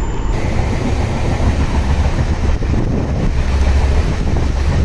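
Passenger train running along the track: a loud, steady rumble of the moving coach.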